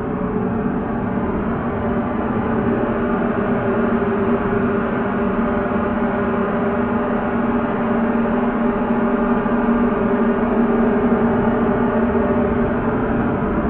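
Instrumental drone: a dense, sustained metallic wash with two steady low tones beneath it, swelling slightly in level over the first few seconds, then holding.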